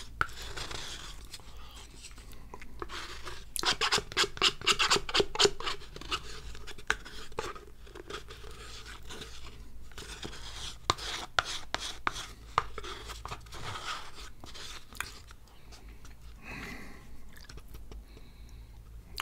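A spoon scraping and tapping around a dessert pot, scooping out the last of a chocolate mousse, with a run of quick, louder scrapes about four seconds in.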